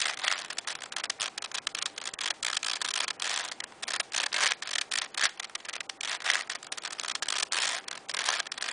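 Plastic 4x4 Rubik's Cube being turned by hand in quick repeated moves: a dense run of clicks and scraping as its layers turn, while the last-layer corner algorithm is run again and again.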